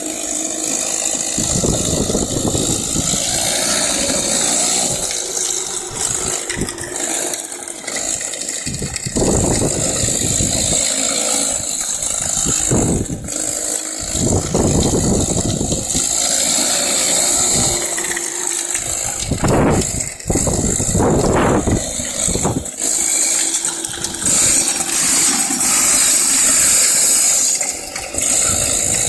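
Comer 50 two-stroke racing go-kart engine running, its revs rising in several surges as the kart accelerates and falling back between them.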